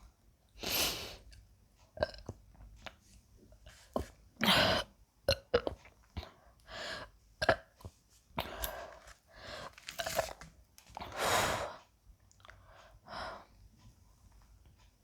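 A woman burping several times after bananas and Sprite, with short sharp clicks between the burps.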